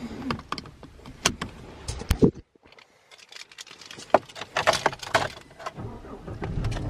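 Clicks and metallic jingling of a seatbelt being buckled and keys being handled and put into the ignition, heard from inside a Chevy Silverado's cab. Near the end the truck's engine starts and settles into a steady idle.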